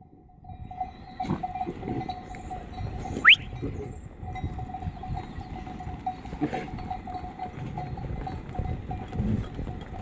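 Flock of sheep moving about a dirt pen: uneven shuffling and soft knocks from the animals, under a faint steady ringing tone. A sharp, short rising squeak sounds about three seconds in.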